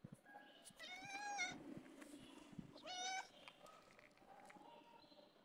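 Domestic cat meowing: two clear meows, about a second in and about three seconds in, with fainter, shorter calls between them.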